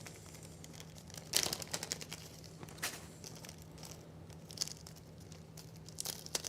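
Plastic packaging, likely the small bag holding the hardware screws, crinkling and rustling in a few short bursts as it is handled and opened. A faint steady low hum runs underneath.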